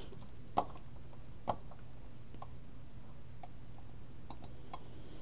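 A few scattered light clicks, likely from a computer mouse, the two clearest about half a second and a second and a half in, over a low steady hum.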